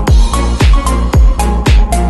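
Electronic dance music with a steady kick-drum beat of about two beats a second, cymbal strokes between the kicks and short synth notes.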